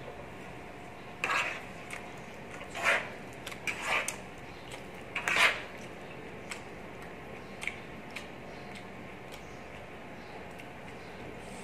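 Metal spoon and fork scraping against a plate while scooping up salad: a few short scrapes in the first half, the loudest about five seconds in, then a few faint clicks.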